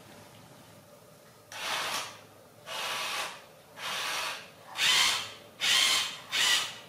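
A plastic toy car being pushed back and forth on tile by a baby macaque, its wheels and gears whirring in six short strokes that grow louder.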